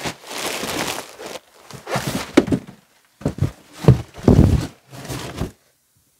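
Crinkling plastic mattress wrap and a series of thumps in about four bursts, as a hinged RV bed platform is lifted, a person climbs into the storage beneath it, and the bed is lowered shut.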